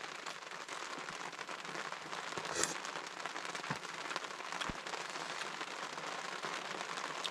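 Steady rain falling, an even hiss with a few faint clicks and a small knock.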